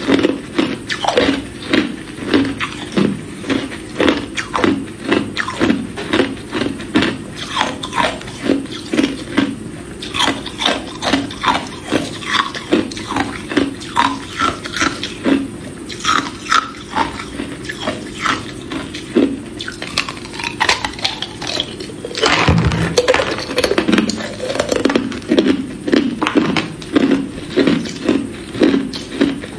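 Hard clear ice cubes being bitten off and crunched between the teeth, close up, in a steady rhythm of sharp crunches about twice a second. About three quarters of the way through there is one louder, longer crack.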